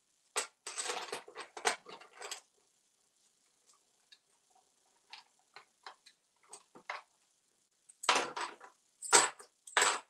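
African grey parrot rummaging with its beak in a plastic toy money tray, clicking and rattling the play coins. There is a burst of rattling in the first couple of seconds, then scattered light ticks, then louder clatters near the end.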